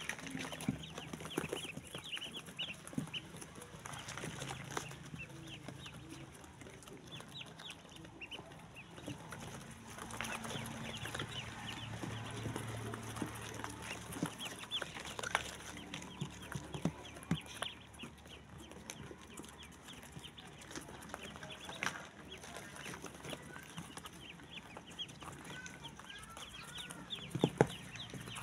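A brood of ducklings peeping continuously, many short high chirps overlapping, with a couple of sharp knocks near the end.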